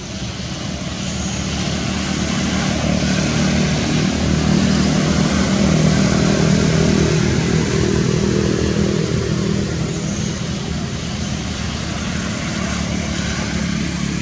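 A passing engine noise, steady in pitch, that swells to its loudest about six seconds in and then slowly fades.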